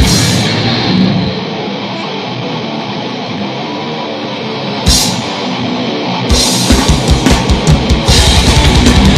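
Heavy metal band playing live, with guitar and drum kit. The drums drop out just after the start, leaving a quieter guitar break with one sharp full-band hit about five seconds in. The drums come back in about six seconds in, and a fast kick-drum beat is running again near the end.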